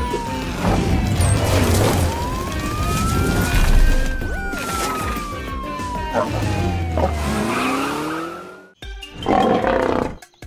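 Cartoon siren on a rescue car wailing slowly up and down over background music. The siren stops about eight and a half seconds in, and a short loud sound follows about a second later.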